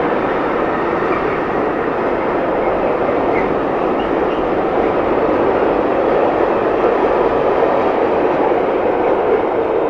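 Intermodal freight train of container wagons rolling past at speed: a steady, loud rush of steel wheels on rail.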